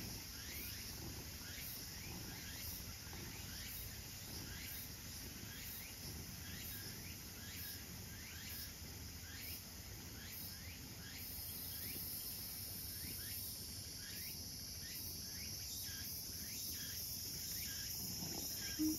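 Faint, steady outdoor background with a calling insect chirping in an even series, about two short chirps a second, like a cricket.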